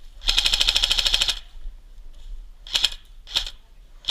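Airsoft gun firing a rapid full-auto burst lasting about a second, followed by two short bursts near the end.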